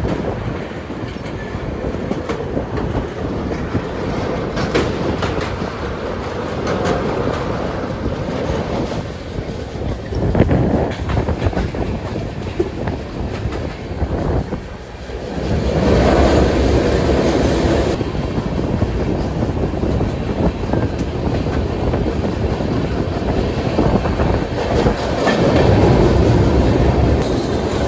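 Indian Railways passenger train running at speed, heard from an open door: a steady rumble of wheels with the clickety-clack of rail joints. It dips briefly about fifteen seconds in, then grows louder just after, and again near the end as the train enters a tunnel.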